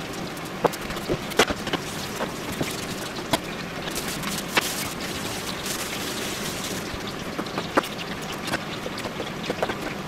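Steady hiss with scattered sharp clicks and knocks of things being handled and set down on a kitchen counter, ending with a knife tapping through eggplant onto a plastic cutting board.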